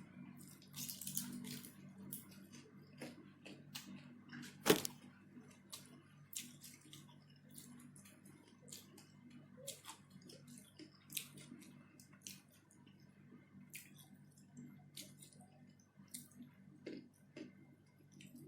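Close-miked eating sounds: chewing and wet mouth clicks and smacks, scattered irregularly, with one sharper click a little under five seconds in. A steady low hum runs underneath.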